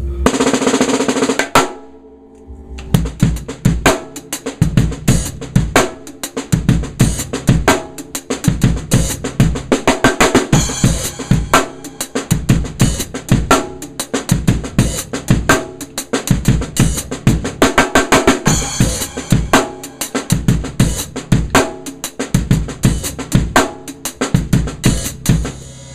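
ddrum Journeyman 13x7 snare drum, tuned high, played in a drum-kit groove with bass drum; the beat gets going about three seconds in and keeps a fast, steady run of hits.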